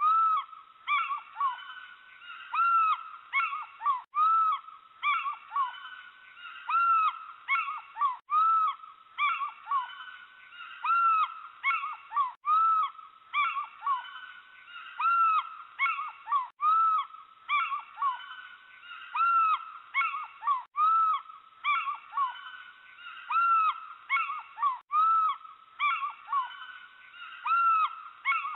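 Owl calls: runs of short, arching calls, repeated in an identical loop about every four seconds with a brief break at each repeat. The sound is thin, with no low end.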